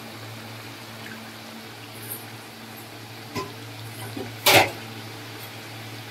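Chicken pieces simmering in their own released water in a metal kadhai, over a steady low hum. A metal spatula knocks lightly against the pan a couple of times, then clanks loudly about four and a half seconds in.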